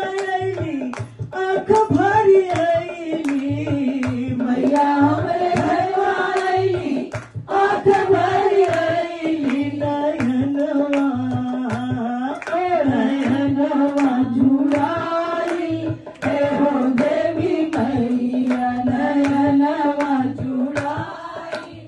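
Women's voices singing a Bhojpuri devotional bhajan to the mother goddess into microphones, a lead singer with the group joining in, over a steady beat of hand claps and a dholak.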